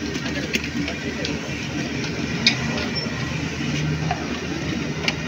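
Steady street noise with a low traffic rumble, broken by a few short, sharp clinks.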